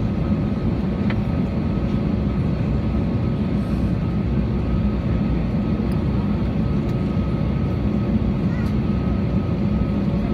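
Steady engine noise inside the cabin of an Airbus A320neo moving along the ground, heard near the wing: a constant low rumble with a faint steady whine, at an even level throughout.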